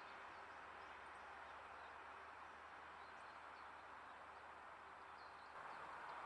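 Faint, steady rushing of river water, growing a little louder near the end, with a few faint, high, short bird chirps over it.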